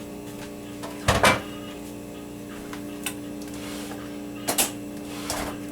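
Kitchen handling sounds: a heavy knock about a second in, then a few lighter clicks and knocks, over a steady low hum.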